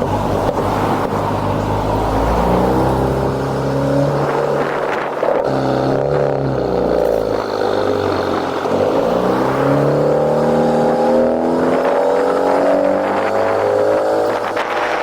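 2018 Honda Accord 2.0T's turbocharged four-cylinder engine, fitted with a catless downpipe, running under way, its pitch rising and falling several times as it speeds up and lets off.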